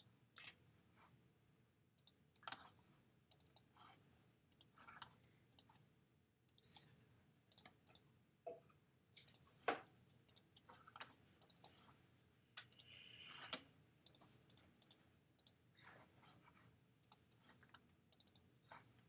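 Faint, irregular clicks of a computer mouse and keyboard as someone works at a computer, with a brief soft rustle about two-thirds of the way through.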